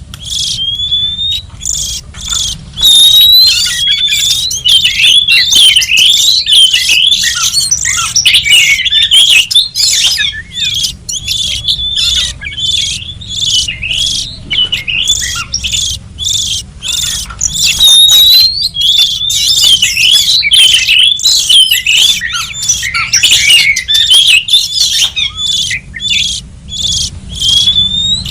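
Oriental magpie-robin song used as a trapping lure: a fast, near-continuous run of varied whistles and harsh chattering notes, with a few clear upswept whistles.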